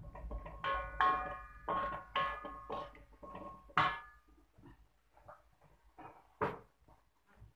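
Wooden spatula knocking and scraping against a metal wok while stirring a thick spice paste, each stroke making the wok ring briefly. A quick run of strokes fills the first four seconds, the loudest about four seconds in, then a few faint knocks and one sharper knock about six and a half seconds in.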